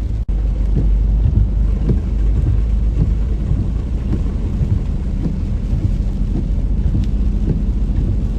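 Heavy rain pouring in a thunderstorm, with many close drops pattering against a deep, steady rumble; the sound drops out for an instant just after the start.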